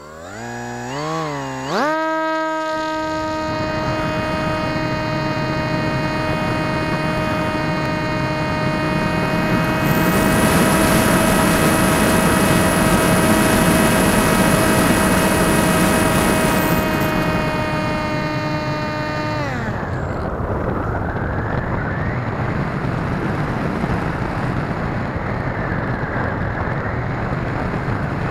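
Electric motor and propeller of a Swift 2 RC glider running under power, a steady whine whose pitch wavers up and down for the first couple of seconds and then holds through the climb. About 19 seconds in, the whine drops in pitch and stops as the motor is cut, leaving the rush of wind over the onboard camera as the glider glides.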